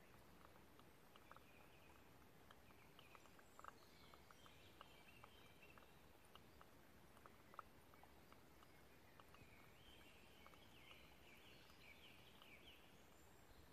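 Near silence: faint background hiss with scattered small ticks and, twice, a faint high twittering.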